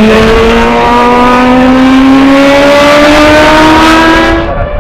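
Mazda 787B's four-rotor R26B Wankel engine at full throttle, its pitch rising steadily as the car accelerates, then breaking off abruptly near the end.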